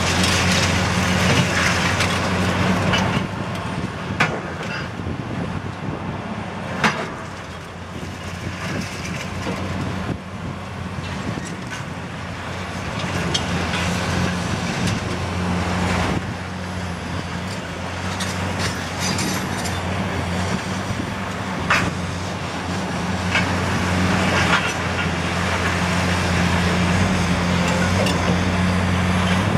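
Caterpillar 329D hydraulic excavator's diesel engine running steadily, its pitch swelling and easing with the work. Several sharp knocks and cracks of demolition debris are struck and broken.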